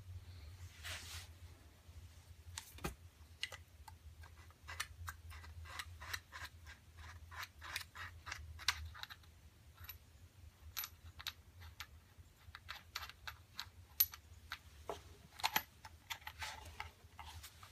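Irregular mechanical clicks and light clatter of an IWI UZI Pro 9mm pistol being handled and its parts worked, with a few sharper clicks later on, over a steady low hum.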